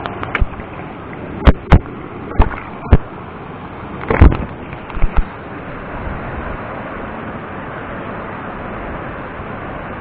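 A series of sharp knocks and clatters, about eight in the first five seconds with the loudest a little past four seconds in, typical of handling gear and a freshly caught fish. A steady rushing background of wind and stream continues alone for the rest of the time.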